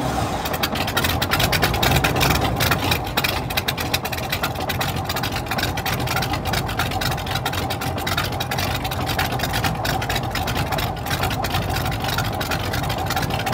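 Twin Volkswagen four-cylinder engines, coupled at the crankshaft and staggered to fire every 90 degrees like a V8, running steadily through short open exhaust pipes.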